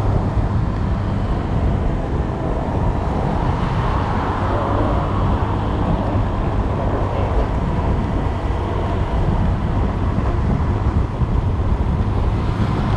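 Wind rumbling on the microphone while riding a Honda Click 125i scooter, its small single-cylinder engine running steadily at cruising speed underneath.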